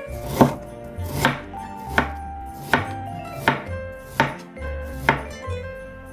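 Chef's knife chopping through Korean pear onto a wooden cutting board: seven sharp cuts, evenly spaced about three-quarters of a second apart.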